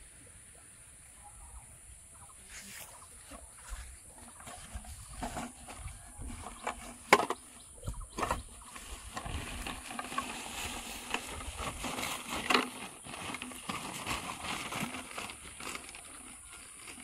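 Bamboo hook-trap tubes knocking against one another and a woven plastic sack rustling as they are handled and set down on grass, with sharp knocks about 7, 8 and 12 seconds in over a steady high hiss.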